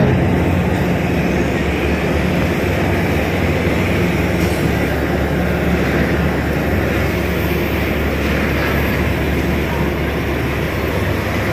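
A docked passenger ship's machinery running: a steady, loud, low drone with a constant hum under it.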